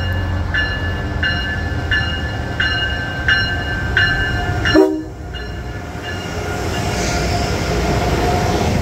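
A locomotive bell ringing over the rumble of a train, about three strikes every two seconds. About five seconds in the ringing stops with a sudden sharp thump, leaving the train's running noise and a faint steady whine.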